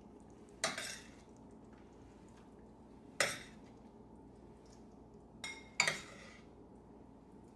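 Metal serving spoon clinking as stew is scooped from a stainless steel pot into a bowl: four sharp clinks, the first three spread a couple of seconds apart and the last two close together.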